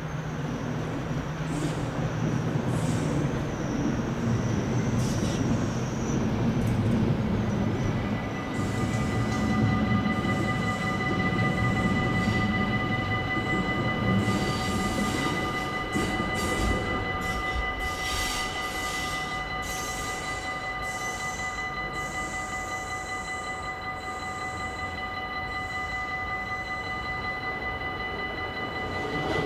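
A train rumbling on the tracks at a Dutch level crossing. From about eight seconds in, the crossing's warning bell rings steadily, signalling an approaching train.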